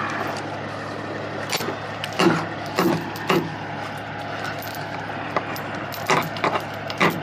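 A diesel engine runs at a steady idle under a run of sharp metallic clanks and rattles, several close together early on and a few more near the end.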